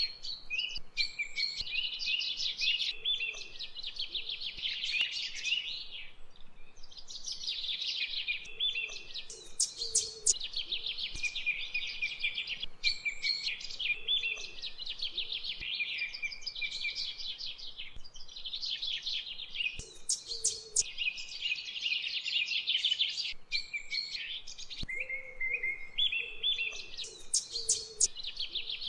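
Birds singing: a continuous run of rapid trilled phrases and high chirps, one after another with short breaks between them.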